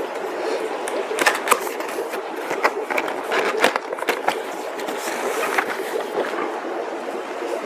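Cardboard box being opened and its packed parts handled: continuous scraping and rustling with many sharp clicks and knocks.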